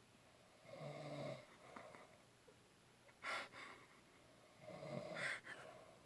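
A man snoring in his sleep: two snores about four seconds apart, with short sharp puffs of breath between them.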